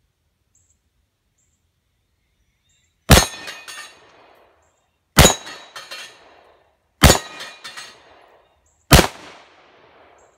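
Smith & Wesson Model 36 J-frame revolver firing four shots of .38 Special +P ammunition about two seconds apart, the first about three seconds in, each shot followed by a short echo.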